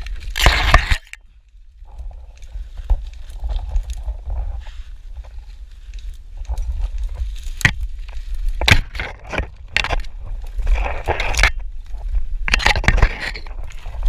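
Brush and twigs scraping and crackling, with several sharp cracks in the middle, over a steady low rumble on the microphone.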